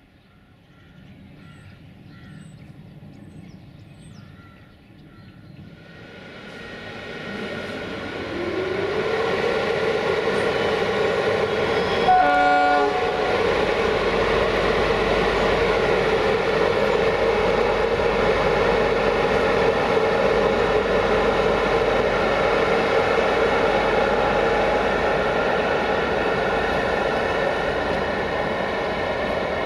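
CFR Marfă class 40 (060-EA, LE 5100 kW) electric locomotive running light: its whine comes in about six seconds in, rises in pitch, then holds steady and loud as the locomotive draws close. One short horn toot about twelve seconds in.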